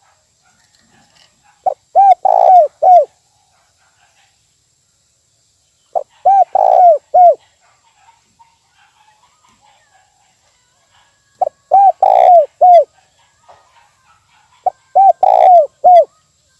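Spotted dove cooing: four phrases of several quick, arching coos each, the middle coo the longest and loudest, repeated about every four to five seconds.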